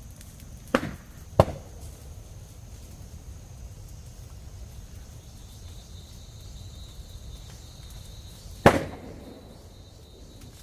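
Three sharp knocks: two close together about a second in and a louder one near the end, over a steady high insect drone.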